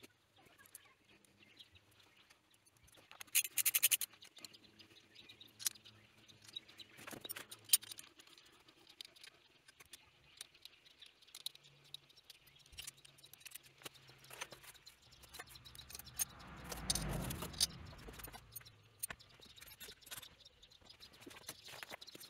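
Faint clicks, taps and small metal rattles of hands and a hand tool working on a small single-cylinder engine's cylinder head while the cam sprocket and timing chain are fitted. A brief louder rustle comes a few seconds in, and a low rumble swells and fades about three-quarters of the way through.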